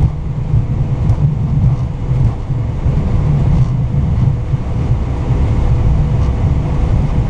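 Airbus A320 cockpit noise during the landing rollout: a steady low rumble from the wheels and airframe rolling on the runway, with a faint steady hum above it.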